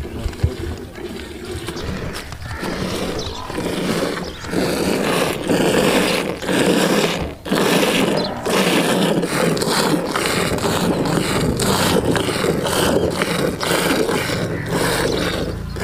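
Cow being hand-milked into a steel pail, drawing the first milk (colostrum) after calving. Milk squirts hiss into the frothy milk in the pail in a quick, steady rhythm.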